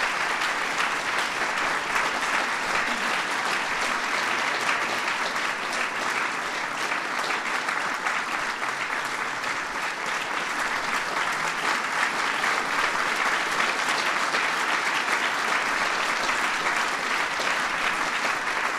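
Large seated audience applauding steadily, many hands clapping at once.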